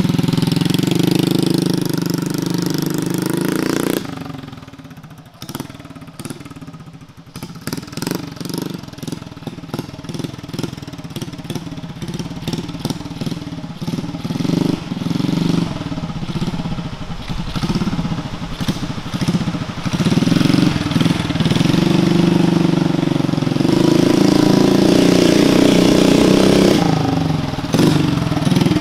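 Predator 212 single-cylinder engine on a homemade mini chopper motorcycle running loud up close, then dropping suddenly about four seconds in to a fainter, pulsing sound as the bike is ridden off, and growing loud again as it comes back near the end.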